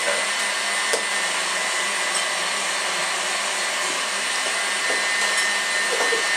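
Steady whooshing noise like a running fan or blower, even throughout, with a faint high whine over it and a light click about a second in.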